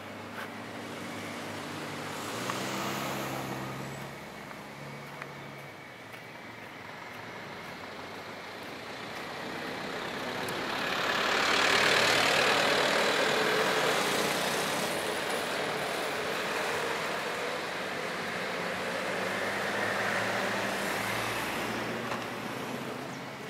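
Road vehicle sound: a steady engine hum, then a louder rush of engine and tyre noise that swells a little before halfway and slowly eases.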